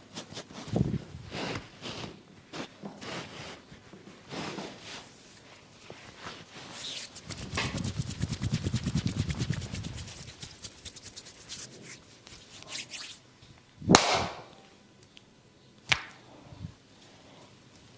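Hands massaging bare skin: a series of slaps and rubs, then a few seconds of fast rhythmic tapping. About two-thirds of the way through comes a single loud, sharp impact, with a smaller one two seconds later.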